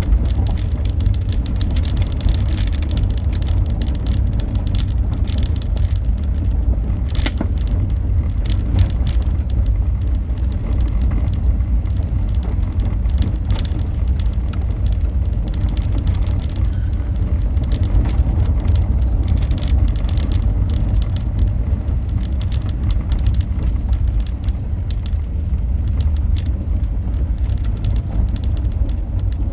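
Car driving on a gravel road, heard from inside the cabin: a steady low rumble of engine and tyres, with scattered sharp ticks.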